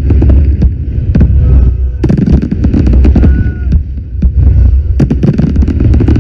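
Fireworks going off: a dense run of bangs and crackles over a deep, heavy rumble, with a few brief whistling tones.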